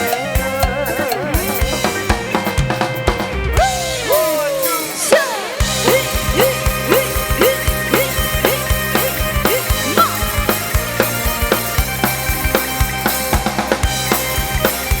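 Live band playing an instrumental passage between sung verses, with drum kit, bass and melody instruments. About four seconds in, the drums and bass drop out for a fill of falling, bending notes, then the beat comes back in with a short falling figure repeated about twice a second.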